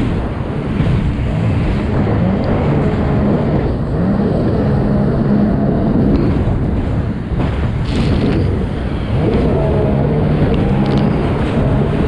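Sea-Doo Spark personal watercraft running hard in a race, its Rotax three-cylinder four-stroke engine rising and falling in pitch several times over a haze of wind and water noise.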